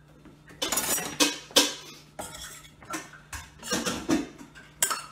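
Metal spoon scraping and clanking against a metal saucepan in a string of irregular strokes.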